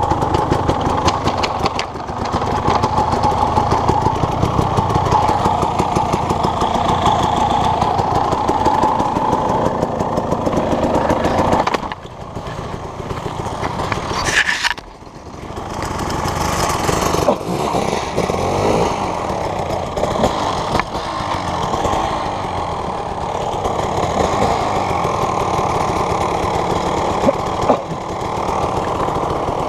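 An engine running steadily with a rapid, even firing pulse. It drops in level about twelve seconds in, dips briefly near fifteen seconds, then picks back up.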